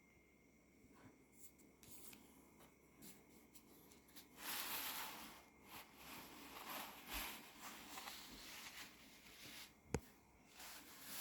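Paper and cardboard rustling and rubbing in short bursts as a handmade paper craft box is handled, with one sharp click near the end.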